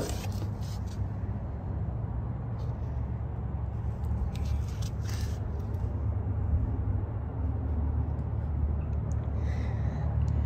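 Wind buffeting the microphone in a steady low rumble, with a few short clicks and rustles from the phone being handled in the first second and again about halfway through.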